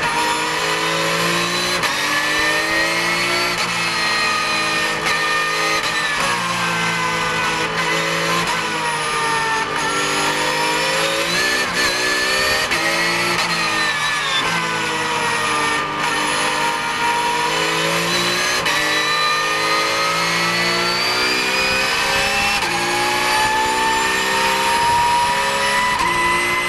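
Porsche 911 GT3 Cup (991) race car's flat-six engine heard from inside the cockpit under racing load. Its pitch rises and falls repeatedly with the gear changes and corners, then climbs steadily over the last few seconds as the car accelerates hard.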